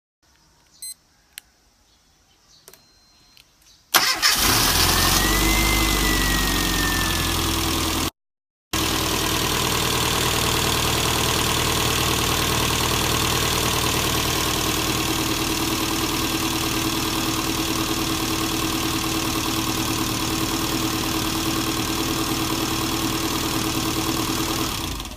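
1997 Rover Mini's A-series four-cylinder engine starting about four seconds in, then idling steadily with a light tappet clatter. It has no alternator rattle, the alternator with the worn shaft having been replaced with a used one.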